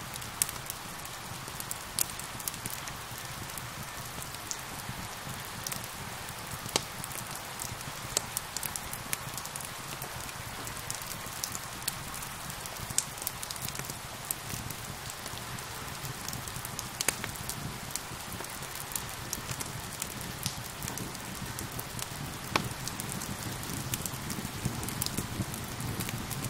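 Steady rain with a crackling wood fire: an even hiss of rainfall, with sharp, irregular pops and crackles scattered through it.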